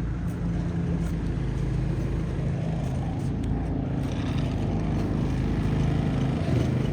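Engine running with a steady low hum.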